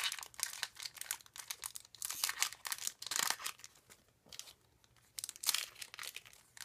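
Foil wrapper of a Pokémon TCG Steam Siege booster pack crinkling and tearing as it is ripped open by hand, in several separate bursts of crackly rustling.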